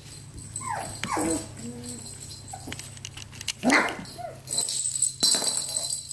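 Four-week-old Labradoodle puppies whimpering and yipping: a few short cries that fall in pitch, the loudest a little past halfway.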